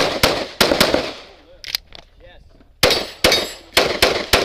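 Handgun fired rapidly in quick pairs of shots (double taps) during a USPSA practical-shooting stage, each shot echoing briefly. About three seconds in, one shot is followed by a short metallic ring.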